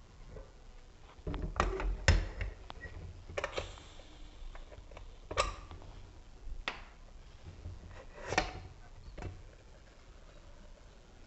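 Stainless-steel pressure cooker lid clinking and knocking against the pot as it is twisted loose and tilted out, about seven sharp metallic clicks spread across several seconds, the loudest about two seconds in.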